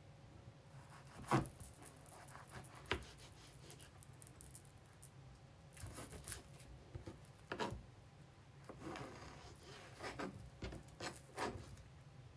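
Knife slicing a banana into four pieces: scattered soft cuts and knocks of the blade, the loudest about a second and a half in, with a quick run of them in the second half.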